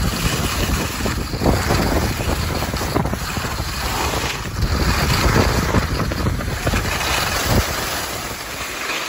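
Wind rushing over the microphone of a skier moving fast downhill, mixed with skis scraping over hard-packed snow; the noise swells and eases every second or two.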